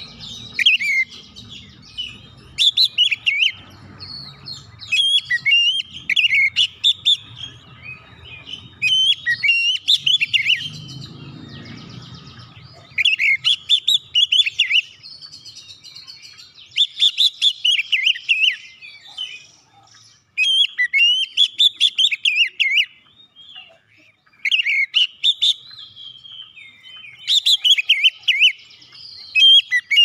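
Oriental magpie-robin (kacer) singing loudly in repeated bursts of rich, varied whistled phrases, each a second or two long with short pauses between.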